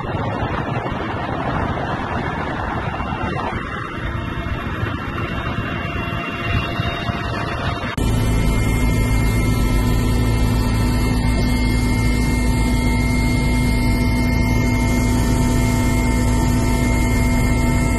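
Mi-17 transport helicopter in flight with its water bucket slung below. For the first eight seconds the rotor and engine noise comes mixed with wind rushing over the microphone. It then switches abruptly to the louder, steady drone of the turbines and rotor gearbox heard inside the cabin, with constant hum tones.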